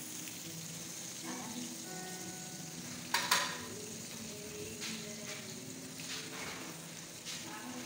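Shrimp and meat sizzling steadily on a hot grill pan over a portable gas stove, being stirred, with a sharp clack of the utensil against the pan about three seconds in.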